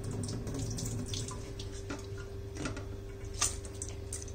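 Wet, freshly washed rice tipped from a plastic colander into an electric rice cooker's aluminium inner pot and spread by hand: scattered soft wet ticks and drips.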